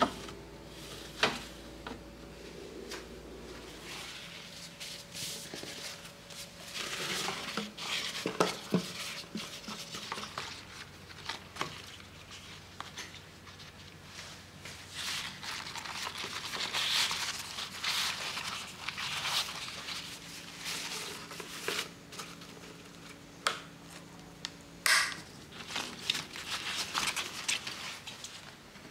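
Food storage containers and plastic packaging handled by hand: scattered clicks and knocks of containers being set down and closed, with stretches of plastic crinkling.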